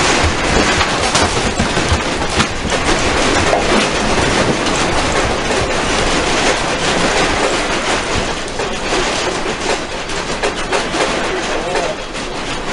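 A house shaking in a strong earthquake: a loud, continuous rattling and clattering of the room and the objects in it over a low rumble, easing off over the last few seconds.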